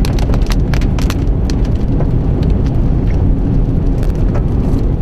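Rain hitting a car's roof and windshield as many sharp individual strikes, over a loud, steady low rumble of the car and storm wind heard from inside the cabin.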